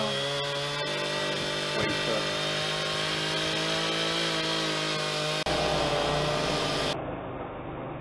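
Chainsaw running steadily as a tree is felled, heard from a distance. It cuts off abruptly about five seconds in, giving way to a steady low rumbling noise.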